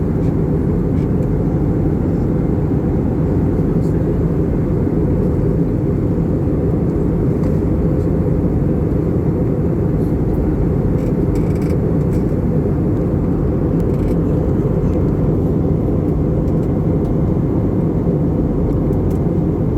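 Steady low rumble of an Airbus A320 in flight, heard inside the passenger cabin: engine and airflow noise at an even level.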